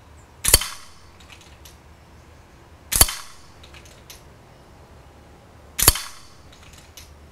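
FX Impact .22 pre-charged air rifle firing three shots, about two and a half to three seconds apart, each a sharp crack with a short ringing tail.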